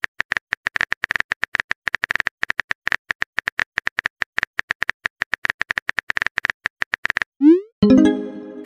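Rapid phone-keyboard typing clicks, about ten taps a second, stopping about seven seconds in. Near the end come a rising swoop and a short buzzy tone.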